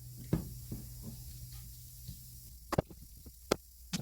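A few sharp, separate metallic clicks and knocks from handling the pneumatic joggler tool, over a low steady hum that stops about two and a half seconds in.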